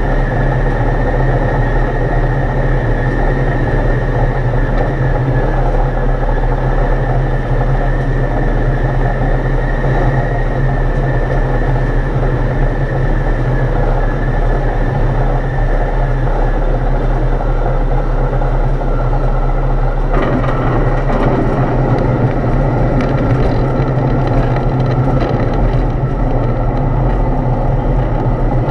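Foxbat A22LS light aircraft's four-cylinder Rotax 912 engine and propeller running steadily, heard from inside the cockpit through a landing. The engine note sinks slightly partway through. Knocks and rattles come in during the second half as the wheels roll along the rough strip.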